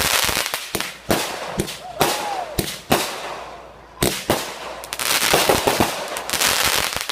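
Consumer fireworks going off: a rapid string of sharp bangs and crackles in several clusters, with a couple of short whistles mixed in.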